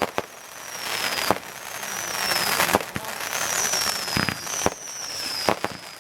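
Fireworks going off: sharp bangs about every second, crackling and hissing between them, and several high-pitched whistles that fall slightly in pitch.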